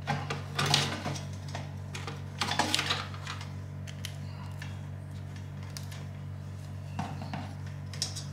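Small hard clicks and rattles in a few short clusters, from handling PC hardware (adapter and antennas) at a computer case, over a steady low hum.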